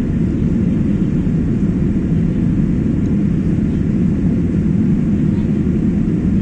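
Steady low drone of an airliner's jet engines and rushing air, heard inside the passenger cabin as the plane climbs out after takeoff.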